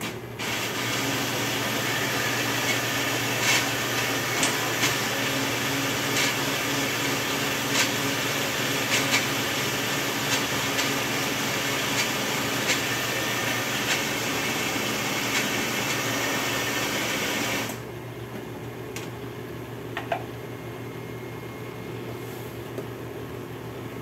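Countertop blender running with dry cracked wheat in the jar, with grains ticking against the jar as it grinds them fine. It stops about three-quarters of the way through.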